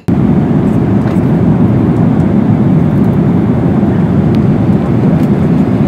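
Steady jet airliner cabin noise in flight: the low, even rush of engines and airflow heard from inside the passenger cabin.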